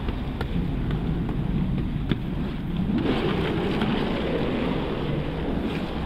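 A heavy soaked carpet being lifted and dragged across wet concrete, with water splashing and streaming off it. A steady low rumble runs underneath, and the rushing grows louder about halfway through.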